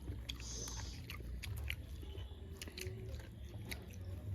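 People chewing and eating close to the microphone: irregular mouth clicks and smacks, several a second, over a steady low hum.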